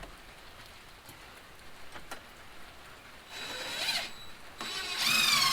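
Power drill driving a screw into a door frame: a short run of the motor with a rising whine about three and a half seconds in, then the motor spinning up again near the end.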